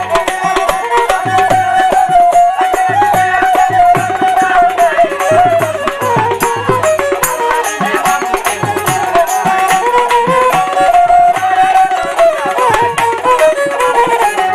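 Instrumental interlude of Bengali folk music: harmonium and bamboo flute carry a gliding melody over a steady dhol drum beat.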